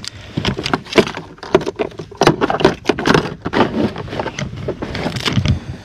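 Irregular knocks, clicks and rubbing of a landed largemouth bass and a handheld fish scale being handled in a plastic kayak, many sharp hits in quick succession.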